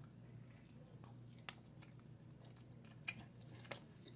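Faint chewing of a mouthful of sandwich, with a few soft clicks, over near silence.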